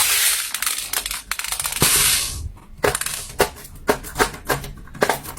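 Crackling and crunching for about two seconds, then a run of separate soft pops, about two to three a second, typical of silicone pop-it fidget toy bubbles being pressed in.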